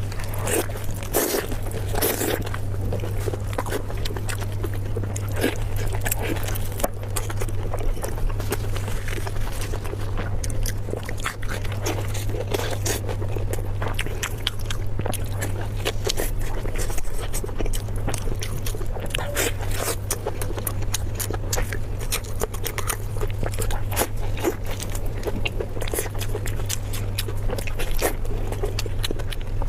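Close-miked eating: a person biting and chewing food, with many short crunches, smacks and wet clicks. A steady low hum runs underneath.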